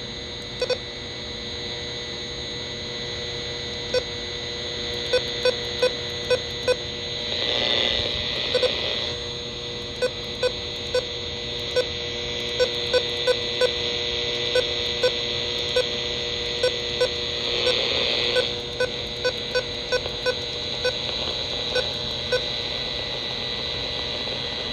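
Dead air on a NOAA Weather Radio stream after the broadcast voice has dropped out: a steady hiss with constant hum-like tones, broken by irregular sharp clicks, and two brief swells of noise about eight and eighteen seconds in.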